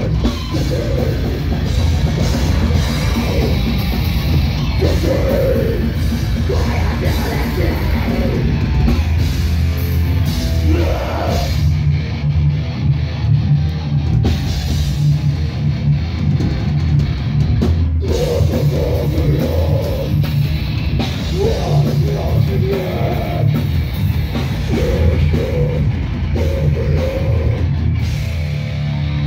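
Live heavy metal band playing loud with distorted guitar and a pounding drum kit, a vocalist shouting over it.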